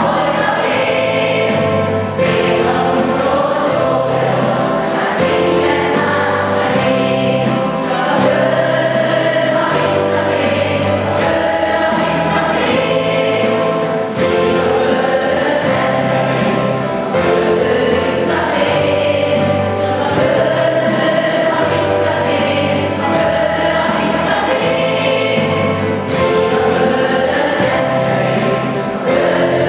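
A children's school choir singing a song in chorus, with instrumental accompaniment under the voices.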